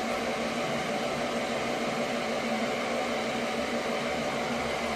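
Swimming pool circulation pump running with a steady, even hum.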